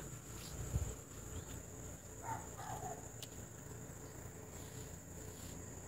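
Faint, steady high-pitched drone of insects, with a brief faint sound about two and a half seconds in.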